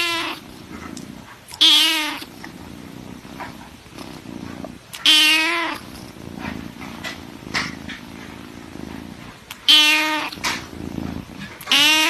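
A cat yowling: five loud, drawn-out meows with a wavering pitch, a few seconds apart.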